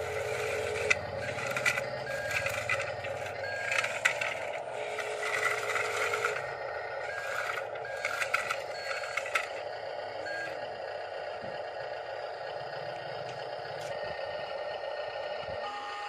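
Radio-controlled toy construction machines' electric motors and gears whining steadily while gravel pebbles scrape and clatter, busy for the first nine seconds or so, after which only the motor whine goes on.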